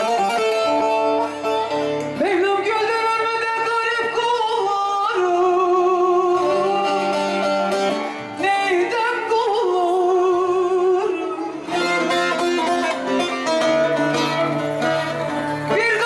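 A woman singing through a microphone and PA, with long held notes that waver in vibrato, accompanied by a plucked bağlama (long-necked Turkish lute).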